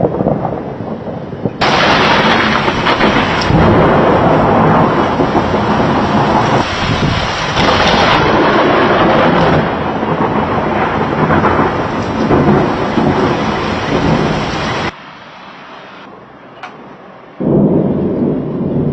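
Thunder rumbling over heavy rain, loud for most of the stretch. The sound jumps abruptly in level a couple of times: it drops about two-thirds of the way through to a quieter rain hiss, then a last loud rumble comes in near the end.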